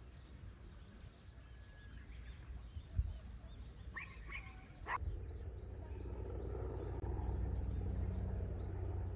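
Outdoor garden ambience with faint scattered bird chirps. About five seconds in, the background abruptly turns louder, a steady low rumbling noise.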